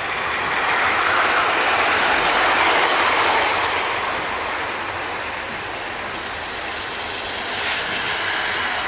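00 gauge model trains running round the track: a steady whirr of the small electric motors and wheels rolling on the rails, loudest from about one to three seconds in as a locomotive passes close, easing off, then rising again near the end as another locomotive comes by.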